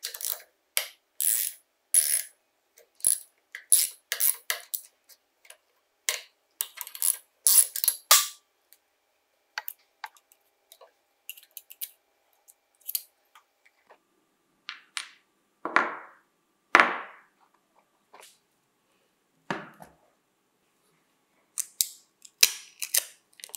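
Close-up handling of small metal impact-driver parts and hand tools: a run of short metallic clicks, taps and scrapes, two louder scrapes about two-thirds of the way through, and a quick run of sharp scraping near the end as a blade lifts the label off the plastic housing.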